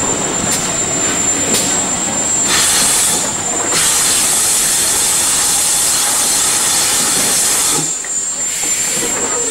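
Train running slowly with a couple of wheel clicks over rail joints, then steam hissing from the GWR 5700-class pannier tank locomotive 5786, briefly about two and a half seconds in and then loud and steady from about four seconds until it cuts off near the end.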